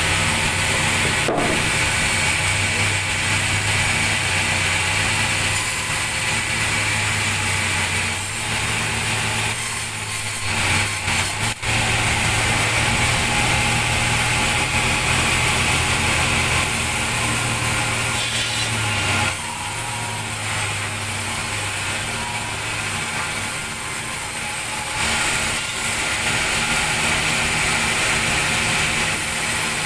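Sawmill band saw running with a loud, steady drone and hiss as its blade cuts through a thick log slab pushed into it by hand. There is a brief drop in the noise about 11 seconds in.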